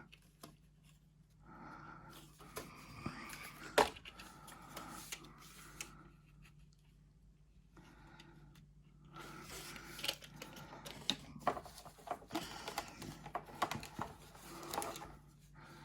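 Faint rustling and irregular small clicks and taps of model train coaches and their plastic packaging being handled, in two spells with a lull in between.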